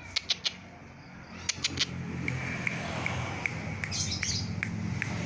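Green junglefowl chicks peeping: short high notes repeated two to three times a second from about two seconds in. A few sharp taps come before them, and a low hum runs underneath.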